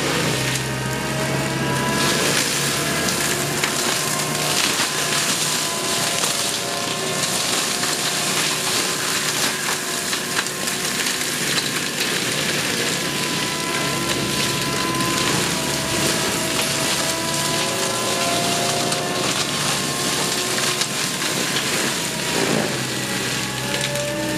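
Forestry mulcher running under load. Its cutting drum grinds and shreds wood and brush with a dense crackle over the steady drone of the engine and rotor, whose pitch wavers slightly.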